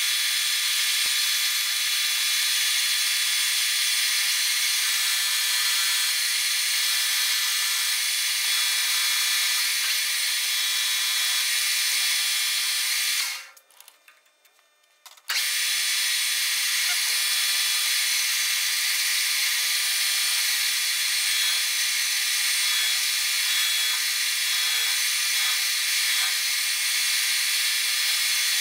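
Metal lathe running steadily, a high whine with several steady tones, turning a small metal part. It goes quiet for about two seconds midway, then runs again.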